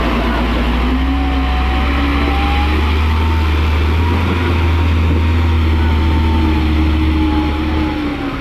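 Diesel engines of a loaded light dump truck working through deep mud and an excavator close by. A loud, steady low engine drone runs throughout, with a whine above it that wavers up and down.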